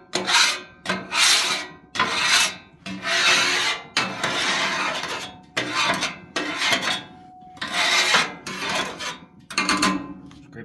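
Flat metal scraper dragged in repeated light strokes across a Blackstone griddle's hot steel top, about one rasping stroke a second, lifting cooked-on residue after a cook.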